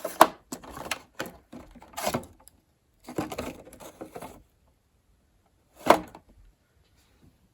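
Toiletry bottles and packages being handled and set down, with three sharp clicks or knocks: one just after the start, one about two seconds in, and one near six seconds in. Rustling and light clatter fill the gaps.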